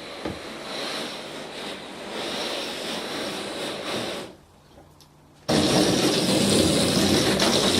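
Water spraying or running in a steady rushing hiss, typical of window cleaning with water. It drops away for about a second past the middle, then comes back suddenly and louder.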